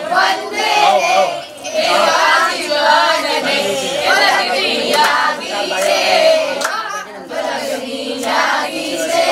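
A group of voices singing a Jain devotional song together, with long wavering notes.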